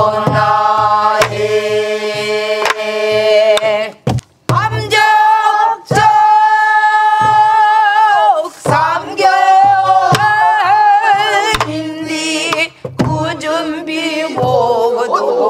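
Namdo folk song (namdo minyo) sung by several voices together, led by a woman's voice, in long held notes with a wide, wavering vibrato. Buk barrel drums beat the rhythm under the singing, with dull thuds and sharp strokes on the rim.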